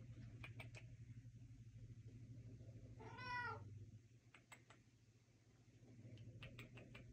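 Domestic cat giving a single short meow about three seconds in, its pitch rising and then falling. Faint light clicks come before and after, over a low steady hum.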